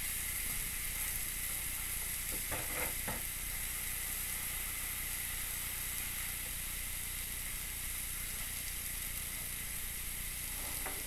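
Steaks searing on a ribbed cast iron griddle pan: a steady sizzle of meat frying in its marinade.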